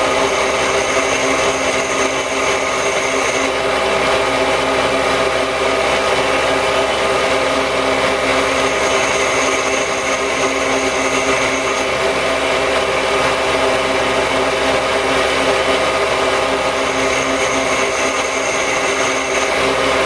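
Bench grinder running steadily while a carbide-tipped lathe tool bit is sharpened against its wheel, throwing sparks. A thin high tone comes and goes three times over the grinding.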